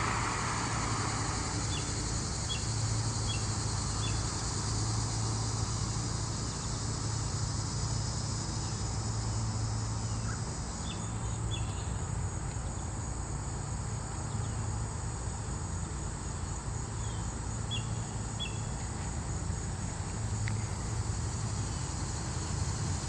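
Outdoor ambience of insects trilling steadily in a high, hissing band, with a few short high chirps in small clusters and a steady low hum underneath.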